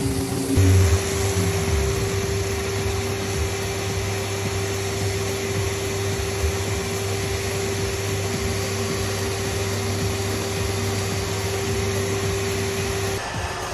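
An electric motor, as on a workshop power tool, running steadily at one constant speed with a hum and a hiss. It starts about half a second in and cuts off near the end.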